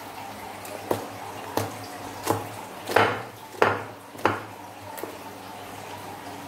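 Slime being pressed and poked by hand, giving about seven wet squelching pops spaced evenly, a little under one a second, the loudest in the middle, over a steady low background hum.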